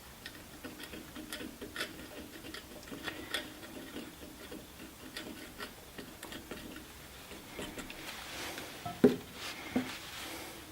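Small irregular clicks and taps of hands handling parts and a super-glue bottle while a metal insert is glued into a hardwood knob blank, with two louder knocks near the end as the pieces are pressed together.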